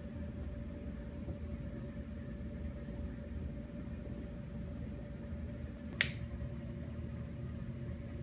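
Steady low room hum with a faint steady tone, and one sharp click about six seconds in.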